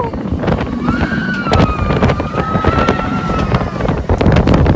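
Mako's steel roller coaster train running along the track at speed, with wind buffeting the microphone and the wheels clattering. About a second in, a rider lets out one long, high-pitched scream that slowly sinks in pitch.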